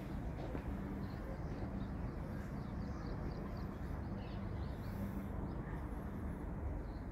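Outdoor ambience: a steady low rumble, with faint short chirps of small birds through the first half.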